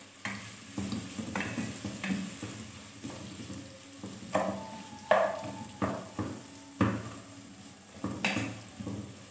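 Sliced onions sizzling in hot oil in a metal pot, stirred with a wooden spatula that scrapes and knocks against the pot at irregular intervals, the pot ringing briefly after some strokes.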